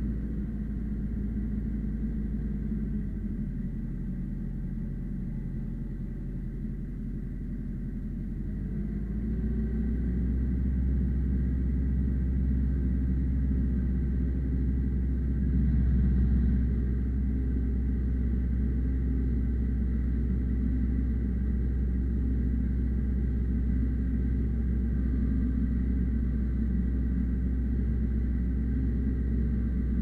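Ursus C-355 tractor's diesel engine running steadily while pulling a two-furrow mouldboard plough through heavy soil. A few seconds in, its sound drops and deepens for several seconds, then picks back up.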